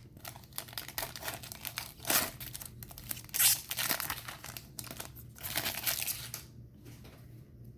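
Foil wrapper of a baseball card pack being torn open and crinkled by hand: irregular crackling rips, strongest about two, three and a half and five and a half seconds in, dying down near the end.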